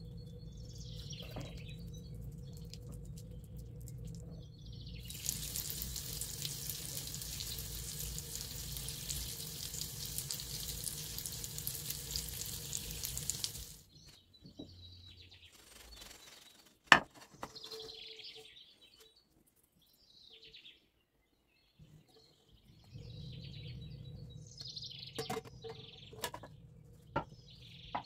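A steady hiss starts about five seconds in and cuts off abruptly some eight seconds later, over a low steady hum, while small birds chirp in the background. Several sharp clicks come in the second half.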